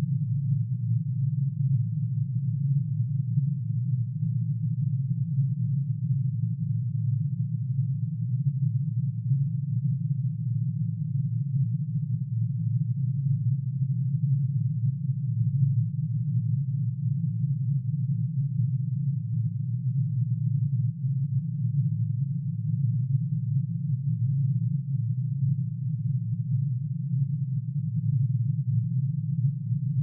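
Synthesized tone made of many sine waves added together, one for each line in curium's atomic emission spectrum, shifted down into hearing range. It is a steady, low, dense hum whose crowded tones beat against each other, so the level wavers quickly.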